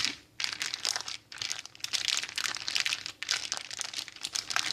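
Plastic bag crinkling and crackling as it is squeezed and handled to press the air out before sealing, with the chicken marinade inside.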